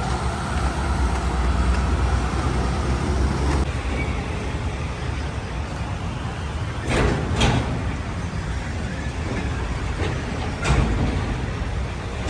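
Road traffic with heavy vehicles such as buses and trucks, a steady low rumble throughout. Short sharp hisses or knocks come about seven seconds in and again near the end.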